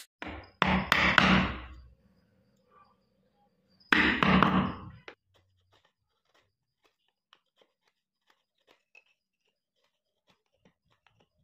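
Wood being cut in two rough bursts of about a second each, one near the start and one about four seconds in, as a groove is cut into a wooden wedge for a hand plane, followed by a few faint ticks.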